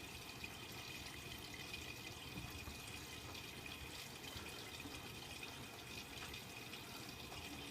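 Miele W Classic WDA110 washing machine taking in water: a steady hiss of water running into the drum.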